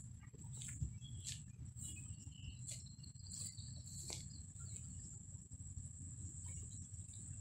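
Footsteps crunching on a gravel trail at a steady walking pace, about one and a half steps a second, over a constant low rumble and a steady high-pitched whine.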